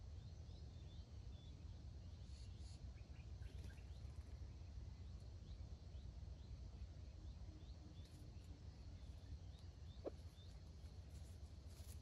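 Near silence: faint outdoor ambience with a low steady rumble and many small, short high chirps repeating throughout, and one brief sharp note about ten seconds in.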